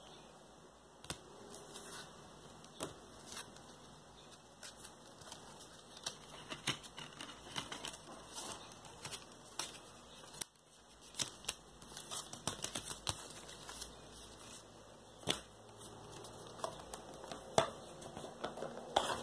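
Stiff card sleeves and printed paper inserts being handled: irregular light taps, clicks and rustles of card and paper, busiest in the second half.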